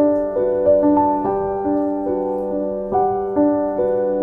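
Background music: a piano playing a gentle melody at about three notes a second over a steady held low note.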